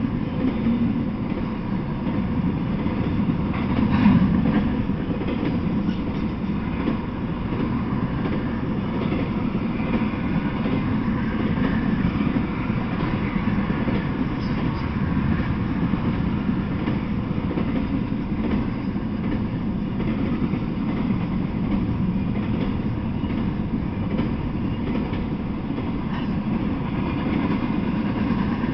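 Intermodal freight train rolling past, its flatcars loaded with semi-trailers: a steady, low rumble of wheels on the rails, with a louder knock about four seconds in.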